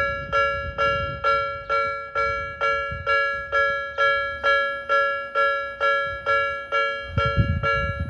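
Japanese railway crossing alarm of the Nikko type, an electronic bell, dinging at an even pace of about two and a half strikes a second. Each strike is a cluster of ringing tones that fades before the next. A low rumble joins near the end.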